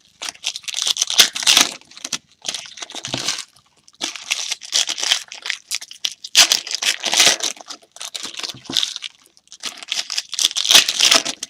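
Plastic or foil wrapping of trading-card packs being torn open and crinkled by hand, in several spells of crackling with short pauses between them.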